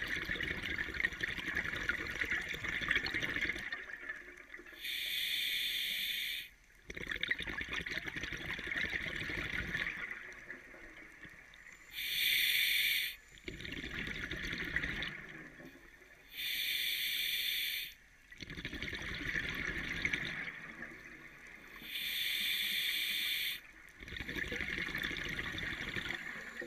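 Scuba diver breathing through a regulator underwater: a hissing inhale of about a second and a half, then a longer bubbling exhale, repeating about every five to six seconds, four breaths in all.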